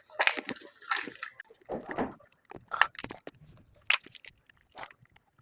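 Wet modelling clay and water being stirred and squeezed by hand into slime: irregular sticky squelches and little crackling clicks.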